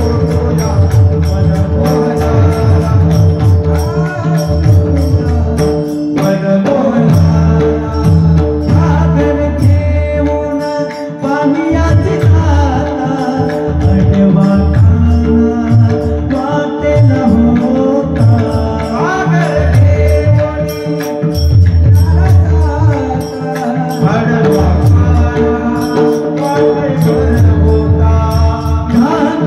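A male singer performing a devotional kirtan song, his voice gliding and ornamenting over a steady held drone, with hand-drum accompaniment.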